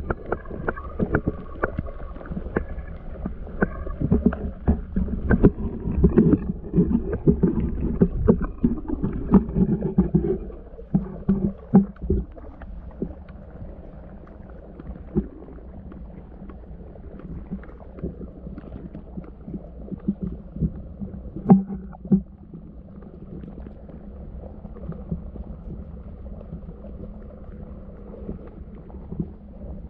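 Muffled underwater sound heard through a submerged camera housing: low sloshing and rumbling of shallow seawater, with many knocks and clicks over roughly the first ten seconds, then a quieter steady low wash with a few scattered knocks.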